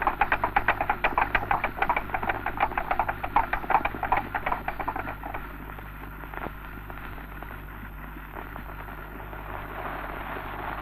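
Clatter of horses' hooves on the road, many quick irregular clicks from several horses, dying away about five seconds in. It sits over the steady hiss and low hum of an early optical film soundtrack.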